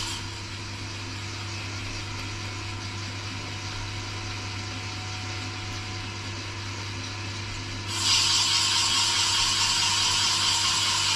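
Portable boring bar running steadily as its cutting tool bores out a vintage BSA motorcycle cylinder barrel. About eight seconds in, the cut turns abruptly louder and harsher, and stays so.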